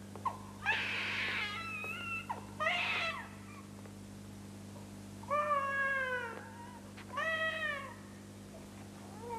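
A series of about five high, drawn-out cries, each sliding down in pitch, with a pause of a couple of seconds in the middle.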